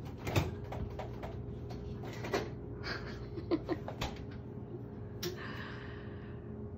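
Kitchen handling sounds: scattered clicks and knocks of things being picked up and set down on a counter, with a louder knock about five seconds in followed by about a second of noise, over a steady low hum.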